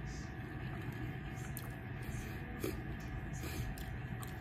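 Faint chewing and mouth sounds over a steady low room hum, with a few small clicks.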